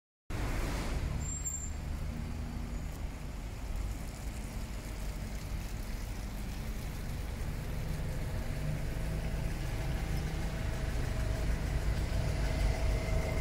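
Road traffic: a steady low rumble of passing cars and buses, growing louder toward the end as a double-decker bus pulls in close, and a faint steady whine joins in about two-thirds of the way through.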